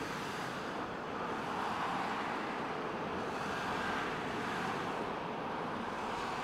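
Steady background rushing noise with no distinct events, swelling slightly twice.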